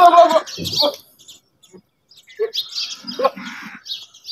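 Goat bleating: a loud, wavering bleat that ends about half a second in, then shorter, lower calls around three seconds in. Birds chirp in the background.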